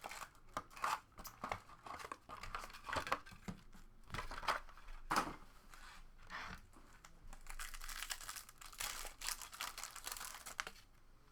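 Wrapping on trading-card boxes and packs being torn open and crinkled by hand, in irregular crackling bursts that die down near the end.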